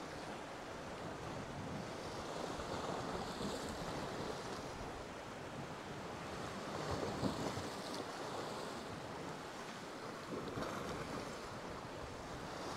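Sea waves washing against shoreline rocks, a steady wash that swells a few times, with wind buffeting the microphone.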